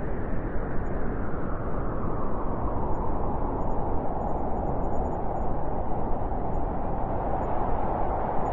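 Blizzard wind blowing steadily: a deep rushing noise with a howling note that grows stronger toward the end.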